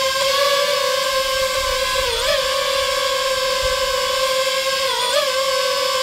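FPV quadcopter drone hovering close by, its propellers giving a steady high-pitched whine. The pitch dips and swells back twice, about two seconds in and again near five seconds, as the drone adjusts its throttle.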